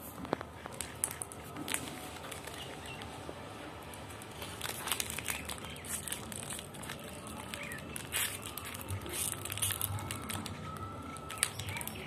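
Plastic biscuit wrapper crinkling and crackling as a rose-ringed parakeet pecks and tugs at it with its beak: irregular sharp crackles, growing busier about halfway through.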